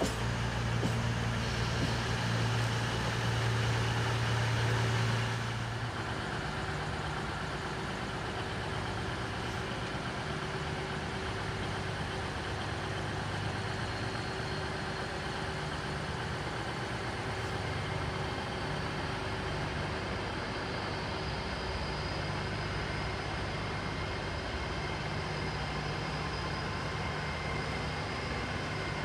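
Diesel train engine idling steadily. A louder low hum for the first five seconds or so drops to a quieter, even hum that carries on.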